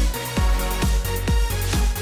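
Electronic dance music with a steady kick-drum beat, about two beats a second, over a bass line.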